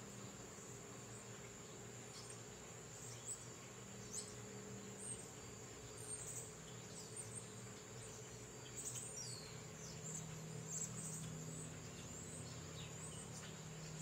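A steady high-pitched insect drone, cricket-like, runs under short, high, falling bird chirps that come now and then, several in quick succession about nine to eleven seconds in.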